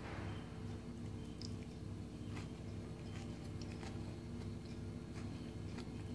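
A person chewing a bite of crumb-coated fried potato ball with a mozzarella and olive filling: soft, scattered crunching and mouth clicks, faint, over a steady low hum.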